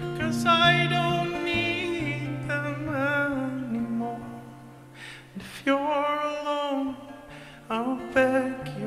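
A man singing a slow song live, accompanied by a hollow-body electric guitar holding low notes beneath the voice. The sung line has a short break about halfway through, then carries on.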